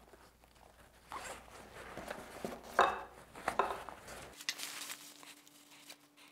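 Nylon webbing straps being pulled through buckles on a backpack frame: several short scrapes with fabric rustling, dying down after about four seconds.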